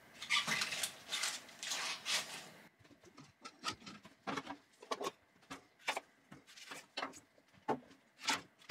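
Kitchen food-prep sounds: rustling and handling for the first few seconds, then a run of irregular light knocks and clicks of a kitchen knife and an onion on a wooden cutting board.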